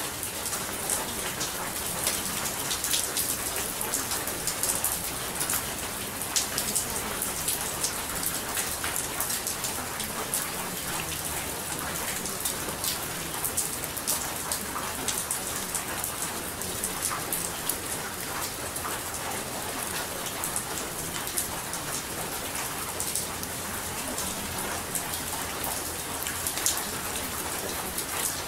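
Steady rain falling, with many small drops ticking on a surface. This is a recorded rain track used as the audible bed of a subliminal, under which affirmations are meant to be hidden.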